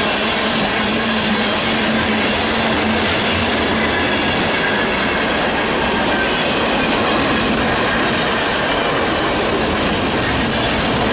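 Freight train cars (tank cars and boxcars) rolling past: a steady, loud rumble and clatter of steel wheels on the rails.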